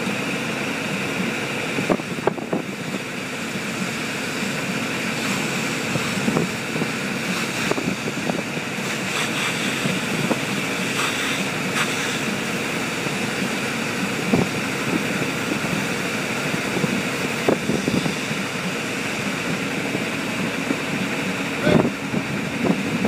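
De-watering pump equipment running steadily, a constant rushing noise, with scattered sharp knocks, the loudest of them near the end.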